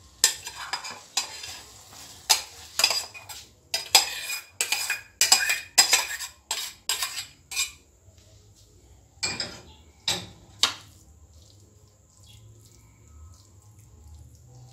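A metal spoon scraping and knocking against a metal cooking pot as cooked fish filling is scooped out into a ceramic bowl. It makes a run of sharp clanks, about two a second, for the first eight seconds, then three more clanks around ten seconds in, then soft spoon work in the filling.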